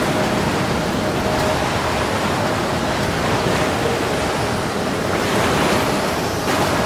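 Choppy, wind-driven lake waves washing and breaking against a stone shoreline, a steady rushing noise with wind.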